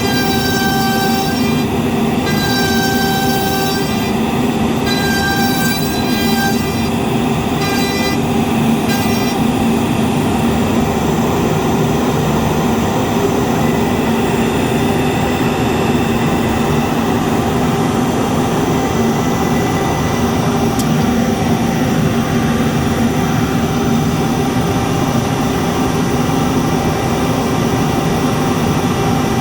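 Root CNC router's spindle cutting with a 6 mm up-down compound flute bit, over the steady drone of a large industrial dust extractor. A higher-pitched cutting whine comes and goes every second or two for the first nine seconds or so, then the running sound stays steady.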